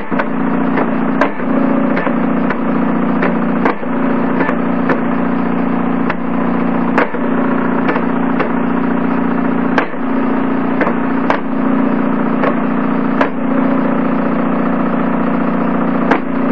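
Homemade blue-diode laser engraver at work: a steady mechanical hum from its stepper motors and cooling fan, with sharp ticks at irregular intervals, about one or two a second, as the head steps along the burn.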